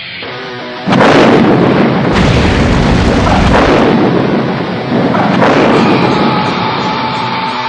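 An explosion: a sudden loud blast about a second in, followed by several seconds of heavy rumbling noise that surges several times before easing off.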